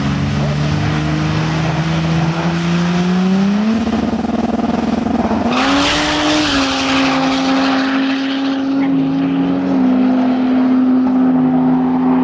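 Mercedes W124's 3-litre OM603 six-cylinder turbodiesel, running on nitrous, revving up and held high on the start line, with a thin high whistle joining in as the revs climb. About six seconds in a loud hissing burst marks the launch, then the engine pulls away down the strip with a few steps in pitch as it changes gear.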